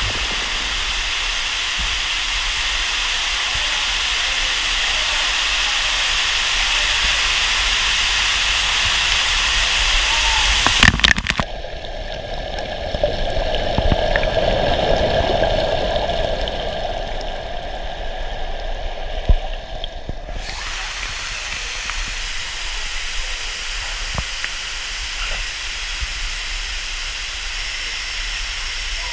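Water showering and splashing down into a cave pool, a steady hiss. About eleven seconds in, after a knock, the microphone goes underwater and the sound turns dull and muffled. It comes back up around twenty seconds in, when the hiss of falling water returns.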